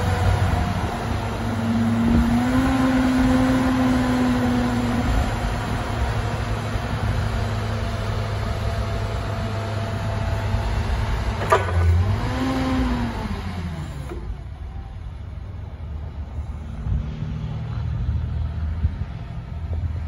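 Hyster S120FTS forklift engine running as the mast raises the forks, with a strained tone held for a few seconds early on under hydraulic load and a pitch that rises and falls again about two thirds through. A single sharp click is heard just before that, and the sound is quieter in the last few seconds.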